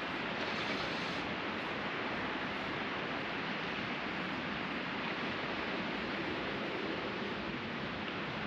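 Steady wash of sea surf breaking on a beach, an even hiss with no distinct single waves standing out.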